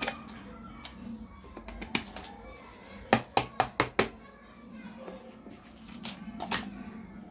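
Small pieces of a miniature toy kitchen set being handled: scattered sharp clicks and taps, with a quick run of five clicks about three seconds in.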